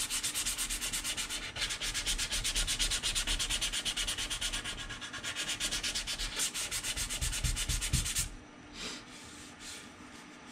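180-grit sandpaper rubbed back and forth in quick, rhythmic strokes over a glued seam on a plastic model-kit hull, smoothing down hardened glue and the seam line. The sanding stops about eight seconds in, leaving a few faint brushing sounds.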